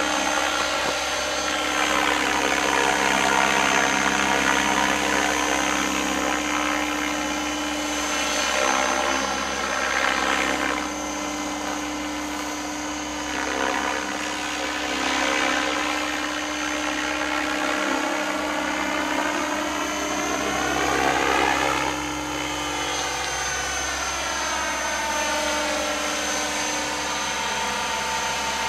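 Radio-controlled model helicopter flying overhead, its rotor and motor whine steady in level but swinging up and down in pitch several times.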